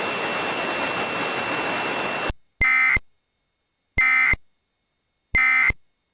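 Steady line hiss with a faint high tone that cuts off about two seconds in, then three short bursts of EAS data tones about a second and a half apart: a Sage EAS ENDEC sending the End of Message (NNNN) header that closes the Required Weekly Test.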